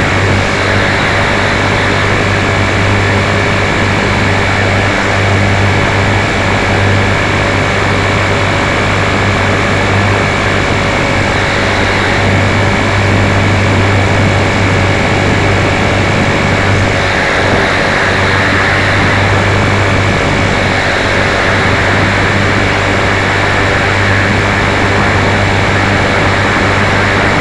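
Walkera V450D03 electric RC helicopter heard through its onboard camera: the motor and main rotor running steadily in flight, a loud constant drone with a low hum and a steady high whine.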